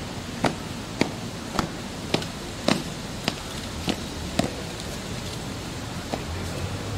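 Hard-soled dress shoes striking stone paving in a measured march, about two steps a second, stopping a little over four seconds in, with one last step near the end.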